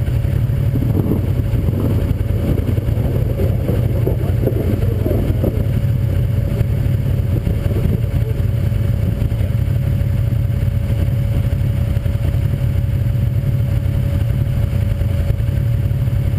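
Side-by-side UTV's 1000 cc V-twin engine idling steadily, a constant low rumble with no revving.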